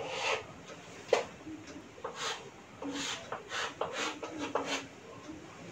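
Chalk scratching on a chalkboard in a series of short strokes, as arcs are drawn with a board compass and then a line is ruled along a set square.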